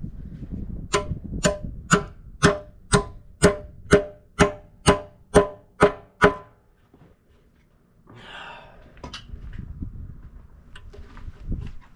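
A hammer strikes a steel excavator bucket tooth as it is fitted, about a dozen evenly paced metallic blows, two a second, each ringing. A short scrape follows a couple of seconds later.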